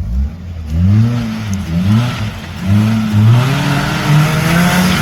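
Off-road vehicle engine revving up and down repeatedly as the throttle is worked over rough ground, with a rushing noise building toward the end.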